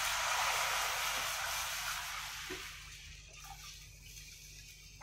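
Buttermilk and gram-flour batter poured into a hot kadai of fried onions and spices, hissing and sizzling as it hits the hot pan. The sizzle fades over about three seconds to a faint, quieter pour as the liquid fills the pan.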